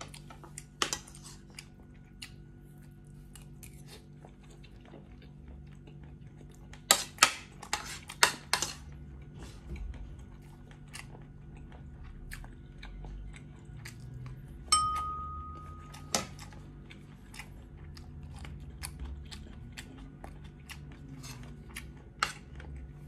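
Close-up eating sounds: chewing and mouth noises with light clicks of a metal fork and spoon on a plate. A cluster of loud sharp clinks comes about a third of the way in, and a single strike about two-thirds through is followed by a short ringing tone.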